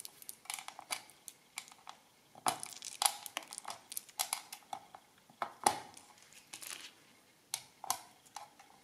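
Push-button caps being taken off an old mechanical adding machine by hand and set down on a table: a run of irregular small clicks, taps and light clatters, the sharpest about three seconds in and just before six seconds.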